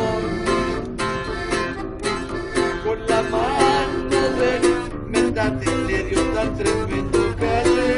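Live norteño-style music: a button accordion playing a melody over plucked-string accompaniment, with a steady, quick rhythm of notes.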